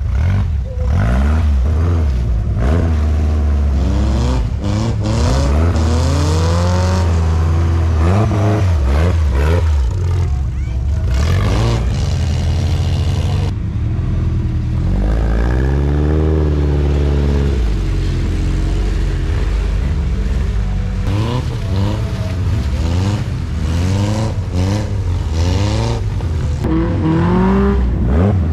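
Off-road buggy engines revving up and down again and again as the buggies pull through deep mud.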